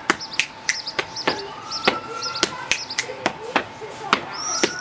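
Body percussion: sharp finger snaps and hand slaps on the chest in an even rhythm of about two to three strikes a second. Small birds chirp in the background.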